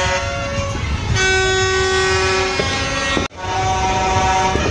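Several horns blown at once in long, overlapping steady tones, the set of pitches changing about a second in. The sound cuts out briefly a little after three seconds.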